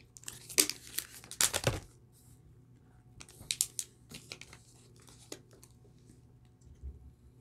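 Crinkling and crackling of plastic packaging and plastic water bottles being handled, in two bouts of rustles about two seconds apart, with a single click a little later.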